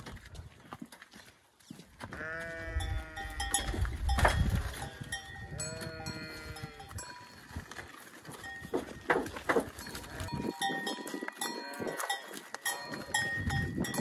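A farm animal calls twice, two drawn-out calls of about a second and a half each, early and mid-way through. Metallic clinks and knocks follow, with a thin steady tone running through the second half.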